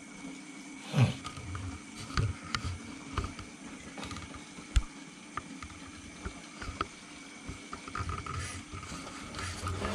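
Steady low hum and faint water sound from a running aquarium, broken by scattered light knocks and rustles, the loudest about a second in and a sharp click near the middle.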